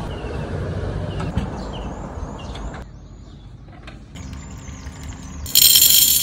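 Coffee beans poured from a tin into a stainless steel cup, a loud, bright rattle lasting about a second near the end. Before it, a low rumbling noise while the truck's wooden hatch is raised, with high chirping in the background.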